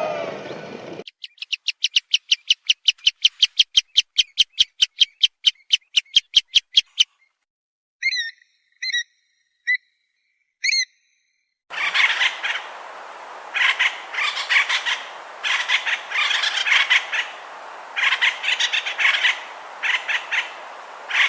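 Animal calls from several short clips in turn. First a fast, even series of chirps, about five a second, lasting some six seconds. Then a few separate short chirps, then irregular bursts of noisier calls.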